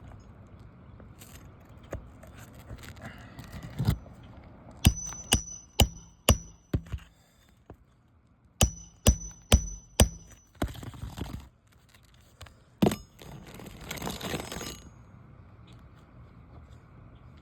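Hammer driving roofing nails into a replacement asphalt shingle: two runs of about five quick, ringing strikes a few seconds apart, then one more strike, followed by a brief scraping rustle.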